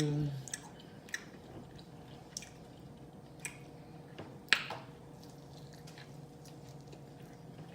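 Mouth sounds of eating: short, wet smacks and clicks of chewing, scattered about once a second, the sharpest about four and a half seconds in.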